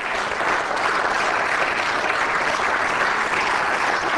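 Applause from members of a parliament's plenary chamber: steady, even clapping from many hands.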